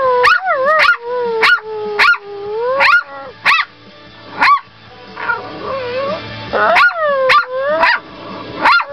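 A small puppy barking at another dog in a string of sharp, high yips that rise and fall in pitch. Drawn-out, wavering whines run between the yips, with a short quieter lull about halfway through.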